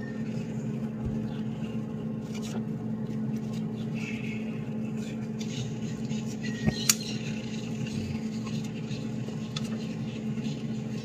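Soft rustling and light scraping of a paper towel wiping a wet plastic stencil dry, with one sharp click a little past the middle. Under it, a steady machine hum from the room.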